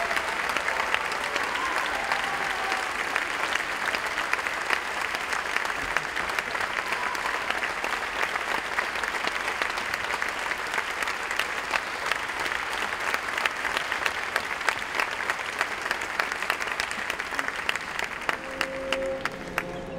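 Audience applauding steadily, thinning to scattered claps near the end as orchestral music begins.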